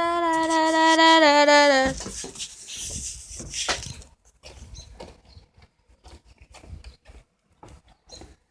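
Semi truck's air horn blowing one long steady note that grows louder about a second in, then sags in pitch and cuts off about two seconds in. A brief rush of noise follows, then only faint clicks.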